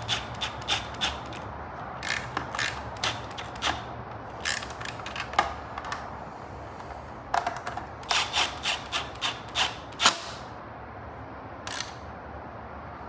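Bursts of sharp metallic clicking, a few clicks a second, from a wrench running down and tightening the 10 mm nuts on the fender eliminator's mounting bolts, with one louder knock near the end.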